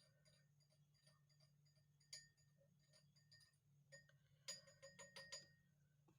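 Near silence with faint light clinks that each ring briefly: a single one about two seconds in and a quick run of them about four and a half to five and a half seconds in.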